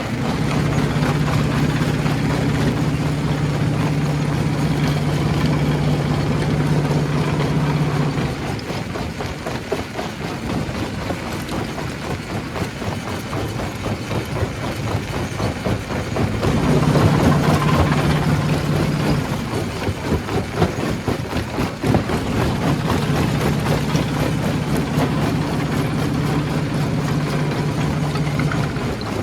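Stone crusher running: a continuous loud mechanical din full of rattling and clattering rock. A low steady hum sounds over it for the first eight seconds, briefly again about seventeen seconds in, and from about twenty-three seconds until near the end.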